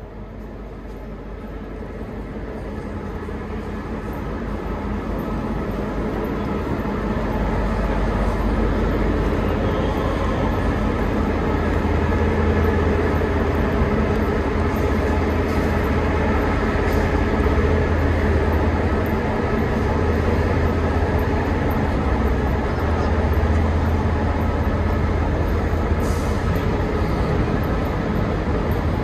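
EMD GL22 diesel-electric locomotive running with a steady low rumble. It grows louder over the first several seconds, then holds at a constant level.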